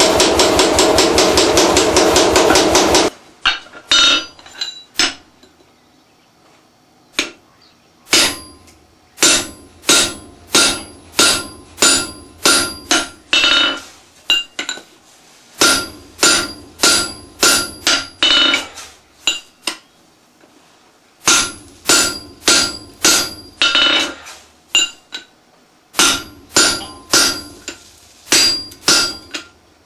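C41 pneumatic forging hammer rapidly pounding hot steel for about three seconds and then stopping. After that come hand hammer blows on an anvil, each with a ringing clang, in runs of about two to three a second with short pauses between runs.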